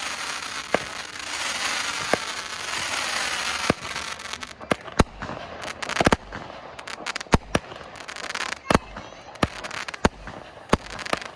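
Consumer fireworks going off: a steady hissing crackle with a few sharp cracks for the first few seconds, then a quick irregular string of loud bangs and pops.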